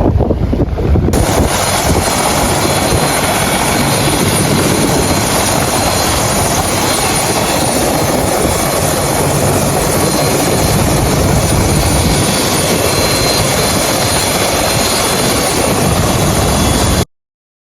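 Helicopter running close by, a loud steady rush of rotor and turbine noise with a faint high whine, cutting off suddenly near the end.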